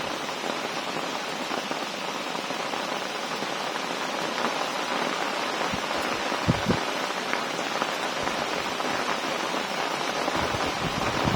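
Heavy rain falling steadily in a storm, an even hiss of downpour. A brief low thump about six and a half seconds in, and low rumbling near the end.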